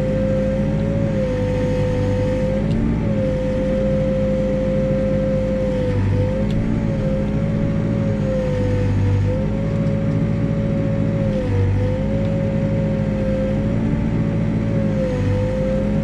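New Holland backhoe's diesel engine running under working load, with a steady high whine over a low rumble. The pitch dips and recovers slightly every few seconds as the boom and dipper are worked.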